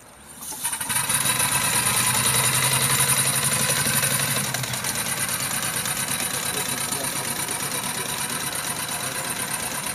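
Home-built miniature Hornsby chain-track steam crawler's engine starting up and running as it moves off on its tracks: a fast, even chuffing clatter with a high hiss of steam. A low hum under it drops away about halfway through.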